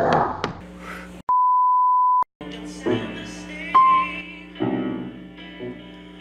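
A steady beep on one tone lasts about a second, with the rest of the audio cut out around it, as a censor bleep would be. Just before it there is a brief burst of voice. After it, piano music begins: chords and single notes struck a second or so apart.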